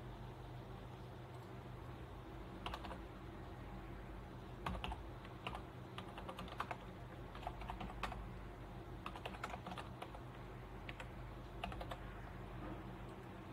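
Computer keyboard typing in short irregular bursts of keystrokes, over a steady low hum.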